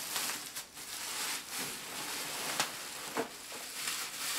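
Bubble wrap and plastic packing crinkling and rustling as they are handled, with two short clicks a little past halfway.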